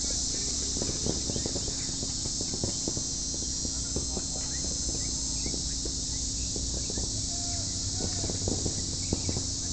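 Steady high-pitched chorus of crickets, with irregular clicks, knocks and rustles of movement close to the microphone, the sharpest about a second in and near the end.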